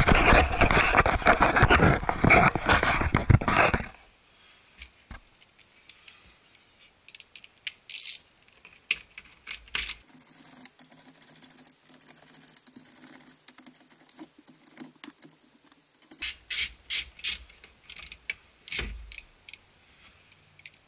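Loud rustling and knocking of the camera being handled for about the first four seconds. Then a socket ratchet clicking in short runs as the small bolts holding a truck door panel are loosened, with the clearest run of sharp clicks, about three a second, a little past two-thirds of the way through.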